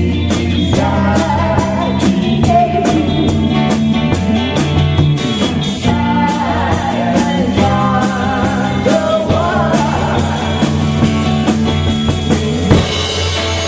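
Rock music from a band: drums, bass and electric guitar playing steadily, with a singing voice carrying the melody.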